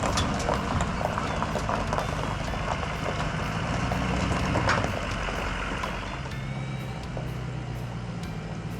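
A vehicle engine running steadily with a low hum, with a quick regular ticking of about three clicks a second over it.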